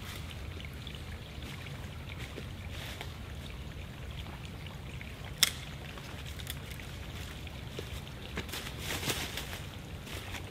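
Footsteps crunching and rustling through dry fallen leaves, with a single sharp click about halfway through, and the crunching growing busier and louder near the end. A steady low rumble runs underneath.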